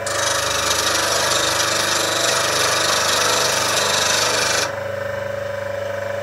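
A beading and parting tool held in a jig and ground on the white wheel of an Axminster Trade slow-speed bench grinder, rocked gently side to side: a steady hiss of steel on the wheel for nearly five seconds that stops abruptly as the tool comes off. The grinder's motor keeps humming steadily throughout.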